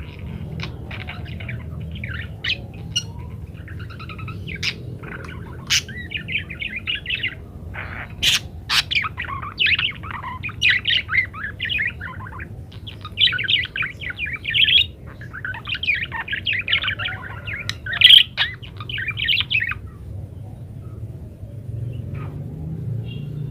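Budgerigars chattering and warbling in fast bouts of chirps and squawks, dying away about twenty seconds in, over a steady low hum.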